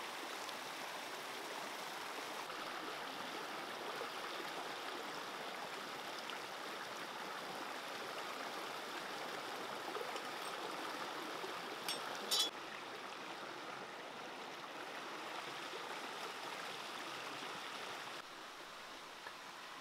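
Shallow stream running over rocks, a steady rush of water. About twelve seconds in, a couple of sharp knocks stand out above it, and the water sound drops a little near the end.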